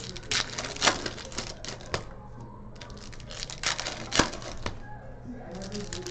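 Trading card packs and cards being handled on a table: irregular sharp clicks and taps, a few of them loud, with a low steady hum under them.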